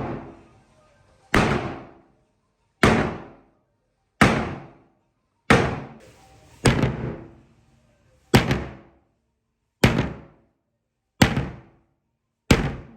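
Sledgehammer striking an Akuvox multi-apartment intercom panel again and again: nine sharp, heavy impacts about one and a half seconds apart, each ringing briefly before dying away.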